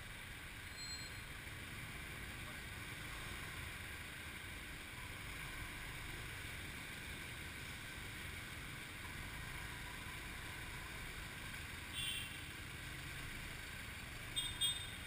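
Motorcycle taxi riding through city traffic, heard from the pillion seat: a steady low rumble of engine and road noise. A brief higher-pitched sound comes about twelve seconds in and again near the end.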